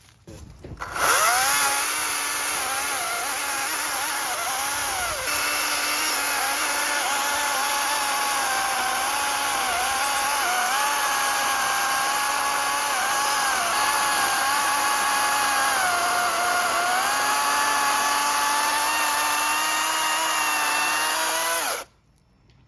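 NovorikX 60V brushless cordless chainsaw spinning up about a second in and running with a steady electric whine, its pitch dipping now and then as the chain bites into mulberry wood. It stops abruptly near the end.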